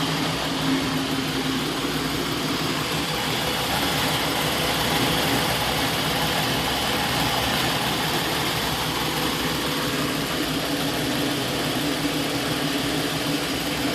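Engine idling steadily with a rough idle.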